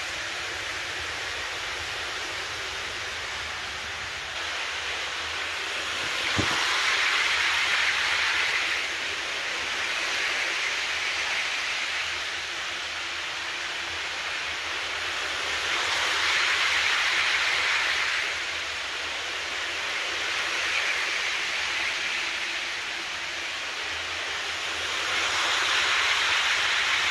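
Model train, a set of EuroCity passenger coaches, running on the track: a steady hissing rumble of wheels on rails that swells and fades three times as the train passes close by. There is a single sharp click about six seconds in.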